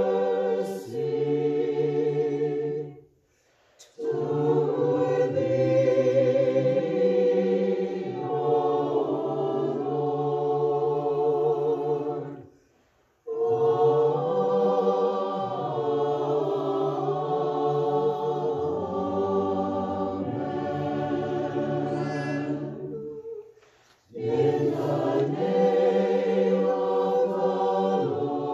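A choir singing a hymn of the Divine Liturgy dismissal in long phrases, with vibrato on the held notes and three short pauses between phrases.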